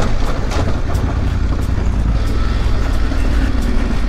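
Adventure motorcycle riding along a gravel dirt road, heard from the bike itself. The engine runs steadily under a heavy low rumble of wind and tyre noise, with a few faint clicks from the loose surface.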